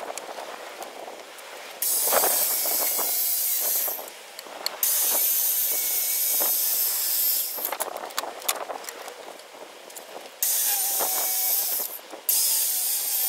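Circular saw ripping a length of softwood timber lengthwise to narrow it, cutting in four runs of a few seconds each with short pauses and handling clicks between them.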